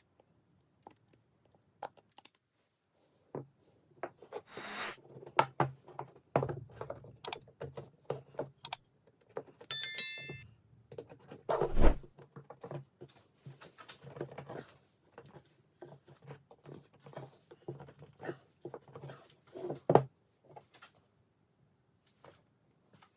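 Workshop handling noises as tools and wooden parts are picked up and set down: scattered clicks, taps and knocks, with one loud knock about twelve seconds in and a brief squeak shortly before it.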